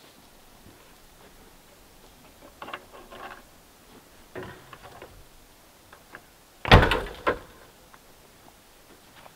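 Camp cooking gear being handled and packed into a Jeep: light clatters about two and a half and four and a half seconds in, then a loud double thump about seven seconds in.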